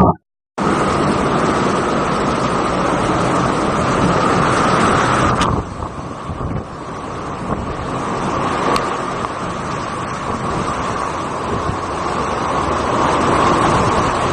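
Steady rushing noise of storm wind and water, with wind buffeting the microphone. It drops in level about five and a half seconds in.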